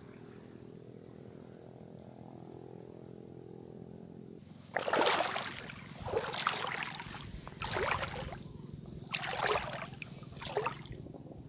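Wading steps through shallow seawater over seagrass: five splashing sloshes about a second and a half apart, starting about five seconds in. Under them, a low steady motor hum.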